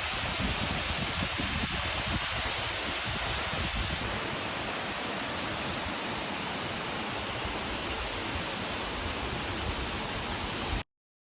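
Waterfall: a steady, loud rush of falling water that cuts off abruptly near the end.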